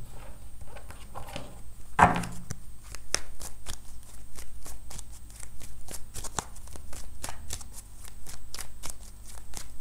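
A tarot deck shuffled by hand: a long run of quick, light card clicks and flicks from about three seconds in. Before that, a card is set down on the table, and there is a brief louder sound about two seconds in.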